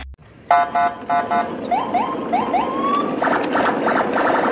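Electronic siren-like sound effects: a few short beeps about half a second in, then a run of quick rising whoops and a fast warbling beep near the end.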